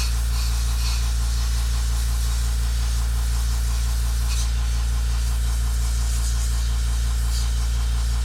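Makita MAC100Q quiet-series half-horsepower air compressor running steadily with a low, even hum. Two brief faint hisses sound about four and seven seconds in.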